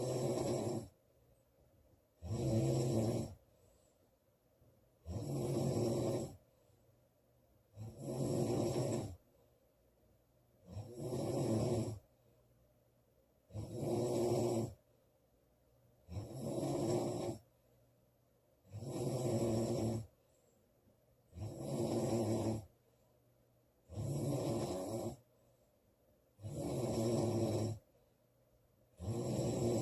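A girl snoring loudly in a steady rhythm. There is one snore about every two and a half to three seconds, each lasting a little over a second: a low buzzing rattle with a breathy hiss on top, and quiet breaths in between.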